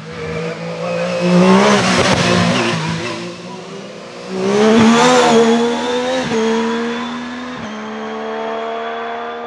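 Hillclimb racing car engine at hard throttle, pitch climbing and dropping through gear changes. It swells loudest twice, about two seconds and five seconds in, then holds a steadier note and fades away.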